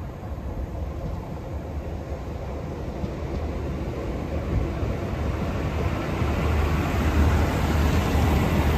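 A Northern Ireland Railways CAF diesel multiple unit approaches and runs past along the platform. The engine hum and rumble of the wheels on the rails grow steadily louder as it nears.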